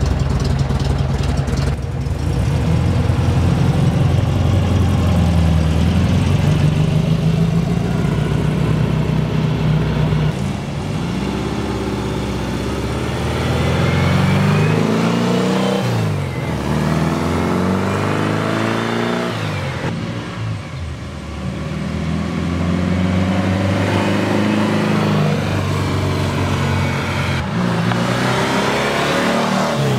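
Beck 356 Speedster replica's 1915 cc air-cooled flat-four with dual Weber downdraft carburettors and dual exhaust, driving and accelerating. The engine note rises and falls several times as it pulls through the gears and passes by.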